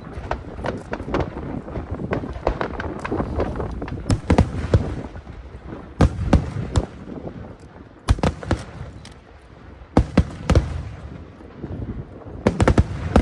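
Aerial firework shells bursting high overhead: a string of sharp, loud booms, often two in quick succession, over continuous crackling from the burning stars.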